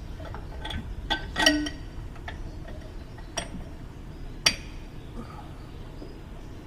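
Sharp metal clinks and knocks with a short ring as a truck's new shock absorber is worked onto its lower mounting stud; four or five strikes, the loudest about a second and a half in.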